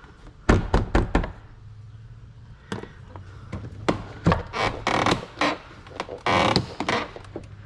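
Hand tools and trim on a car's inner door panel clicking and knocking during disassembly: a quick run of sharp clicks about half a second in, scattered clicks and knocks later, and a short scraping rush a little after six seconds.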